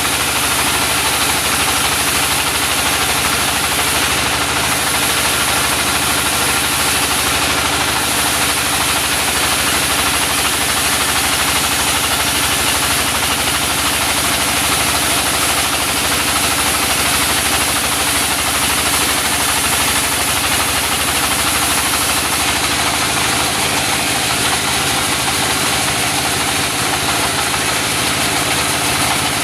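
Engine-driven mobile circular sawmill running steadily: a constant engine drone with an unbroken high hiss above it, and no change in pace.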